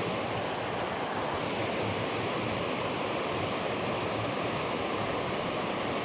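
Steady rush of water from a low creek waterfall spilling over a rock ledge.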